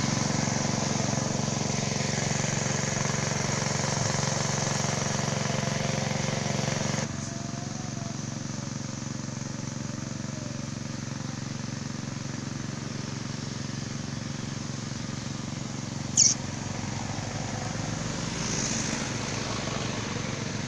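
A small engine running steadily in the background, dropping abruptly to a lower level about seven seconds in. A short high chirp sounds near the end.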